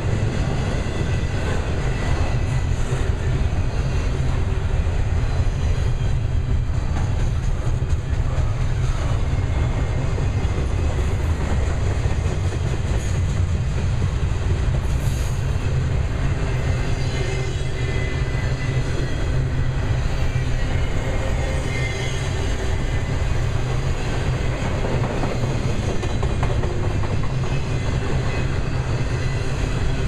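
Loaded double-stack container well cars of a freight train rolling past: a steady, loud rumble of steel wheels on the rails.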